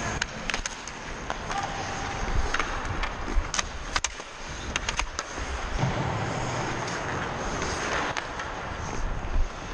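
Ice hockey skates scraping and carving on the ice, with a run of sharp clacks of sticks on the puck and ice in the first half. There is a louder knock near the end.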